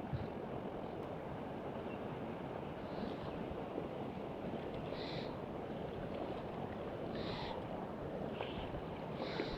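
Steady outdoor wind and ambient noise, with about five short, high chirps spread through it.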